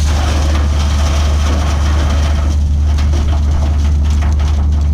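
Excavator's diesel engine running steadily with a deep drone, with light clicks and rattles from about halfway through.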